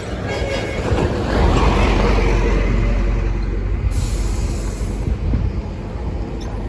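A heavy construction truck passing close by, its deep engine rumble and rattle swelling about a second in and easing off after about five seconds.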